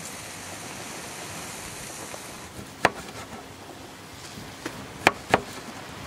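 Knife slicing a tomato on a wooden cutting board, the blade knocking the board once about three seconds in and three more times close together near the end. A steady hiss runs underneath before the knocks begin.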